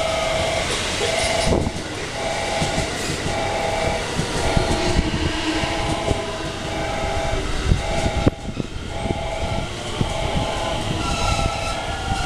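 A JR West 223 series 2000 electric multiple unit pulls into the platform with its wheels knocking over the rail joints. A falling electric whine can be heard as it slows at the start. Throughout, a two-note electronic signal repeats in short pulses.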